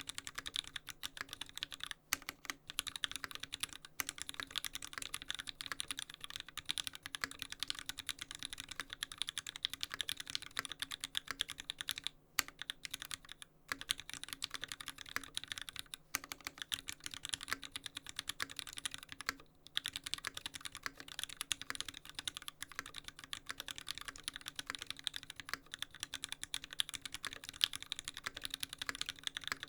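Continuous fast typing on a custom mechanical keyboard with lubed Gateron Yellow linear switches and GMK keycaps. The keystrokes come densely, with a few short pauses about 2, 12 and 19 seconds in.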